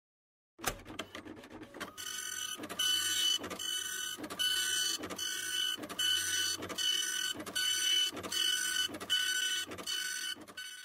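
A rhythmic mechanical whirring with two steady high tones, pulsing about one and a half times a second. It starts about two seconds in, after a few faint clicks.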